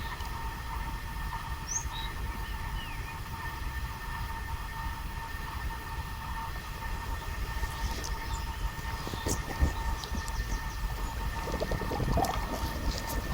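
Outdoor ambience: a steady low rumble under a constant hum, with a few short bird chirps early on. Several knocks and clicks come in the last few seconds, the loudest about ten seconds in.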